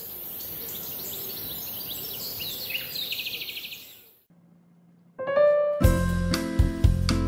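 Birds chirping and trilling over a steady high hiss, fading out about four seconds in. After a brief pause, background piano music starts.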